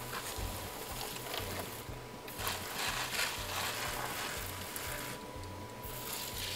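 A handheld spray bottle mists water onto sphagnum moss in long sprays, with short breaks about two seconds in and again about five seconds in. The moss is only being dampened on top, not soaked, using a gentle spray.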